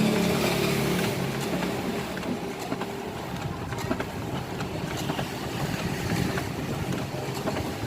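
Kyocera 3860idn copier-printer running: a steady motor hum that fades out about a second in, then irregular mechanical clicks and rattling.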